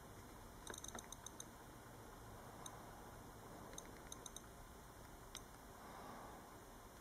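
Apple iPod nano (4th generation) click wheel clicking as the menu is scrolled: a quick run of about half a dozen clicks about a second in, then scattered single clicks and a short cluster.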